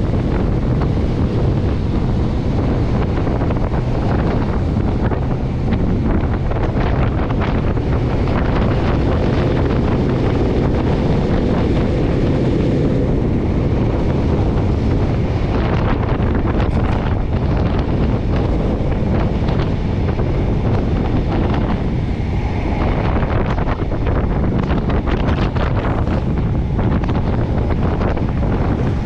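Wind rushing and buffeting over the microphone of a camera held at a moving train's window, over the steady rumble of the train running along the track.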